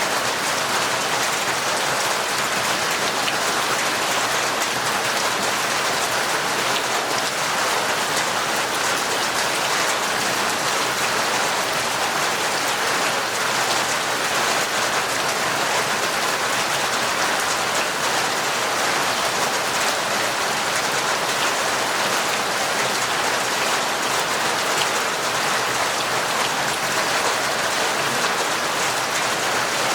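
Torrential rain falling steadily: a dense, even hiss of countless drops, with no change in strength.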